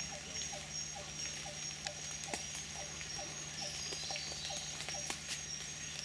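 Bornean rainforest ambience: a steady high-pitched whine over a short low note repeating about twice a second, with a few sharp clicks, the loudest about two and five seconds in.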